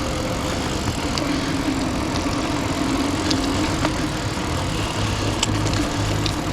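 Steady rushing noise with a low rumble from riding an old mountain bike: wind on the camera microphone and tyres rolling, with a few light clicks.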